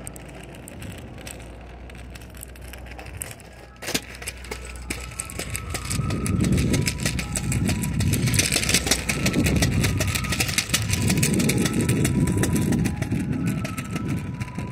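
Street ambience picked up on a phone carried along the sidewalk: a sharp click about four seconds in, then from about six seconds a loud, uneven low rumble on the microphone.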